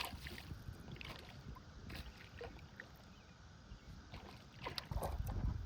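Scattered light knocks and clicks of tackle and gear being handled in a small fishing boat, with a low rumble coming in near the end.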